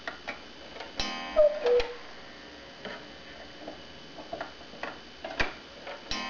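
Black Forest cuckoo clock going off: a few clicks as its minute hand is turned, then a gong strike about a second in, followed by the two-note cuckoo call from its wooden whistles, high then lower. Light ticking of the mechanism follows, and a second gong strike comes near the end.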